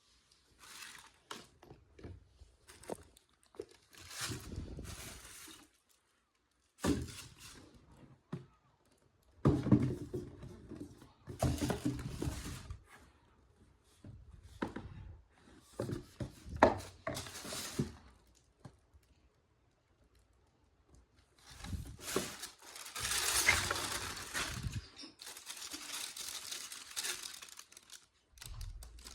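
Hands unboxing a pair of sneakers: a cardboard shoebox and its paper wrapping rustling and crinkling in irregular bursts, with a few sharp thunks as the box and shoes are handled.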